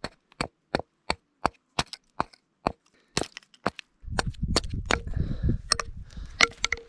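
A blade chopping into a split log, short sharp strikes about three a second, as wood is carved away from the lower part of the piece. About four seconds in the chopping stops and a low rumbling handling noise with a few knocks takes over.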